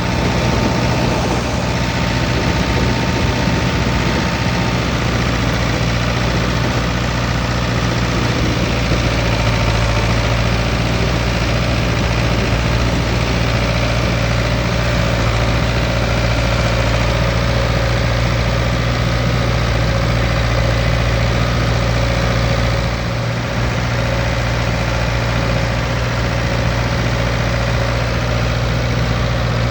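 Tractor engine running steadily under load, with a deep, even hum and a brief dip in level about 23 seconds in.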